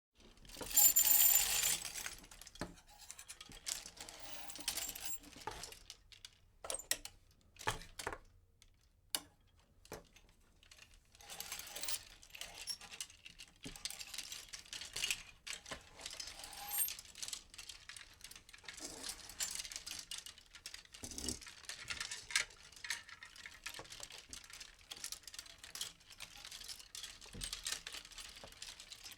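Clothes hangers being slid along a rail, scraping and clicking against each other in irregular bursts. The loudest clatter comes about a second in, and there is a brief lull a few seconds before the middle.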